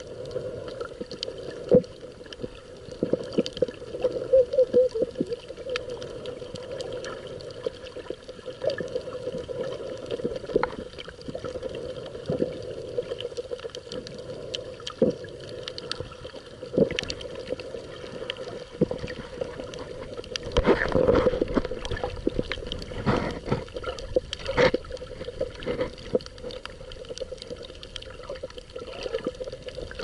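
Underwater sound picked up by a submerged camera while snorkelling: muffled, steady water noise with many scattered clicks and crackles. A louder rush of water comes about two-thirds of the way through, followed by a few stronger strokes, as of arm and body movement.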